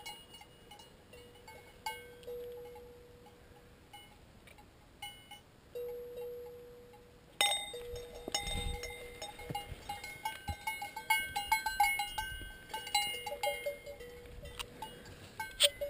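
Cowbells on cattle clanking irregularly, each strike ringing on. Only a few rings come in the first half, then the bells clank much more often from about halfway through.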